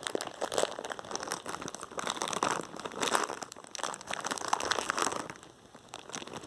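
Plastic snack packet crinkling and rustling as it is handled, dying down about five seconds in.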